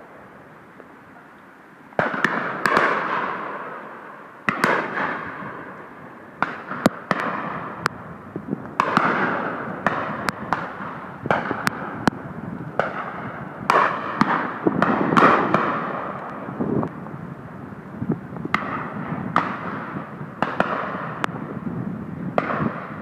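Shotguns firing at driven game: about thirty irregular shots from several guns, starting about two seconds in, some sharp and close, others fainter, each trailing off in echo.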